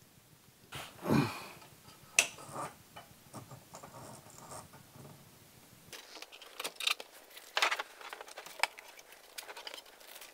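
Small plastic fixing screws and their plastic bag being handled: light clicks and rustles in an irregular string, with a louder rustle about a second in and a sharp click just after two seconds.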